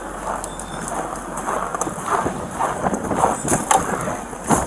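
Footsteps crunching through packed snow in irregular steps, with a sharp knock near the end.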